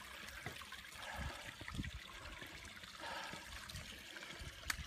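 Faint trickle of water running down a wet rock face into a small pool.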